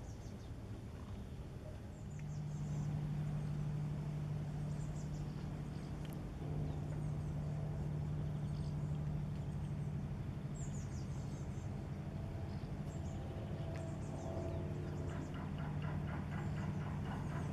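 Steady low drone of an inland cargo ship's diesel engine, starting about two seconds in, with small birds chirping high above it. A fast regular ticking joins near the end.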